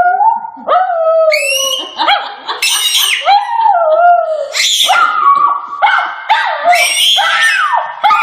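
A dog howling and yowling in a run of long calls that waver up and down in pitch, the 'talking' howl of a pet dog.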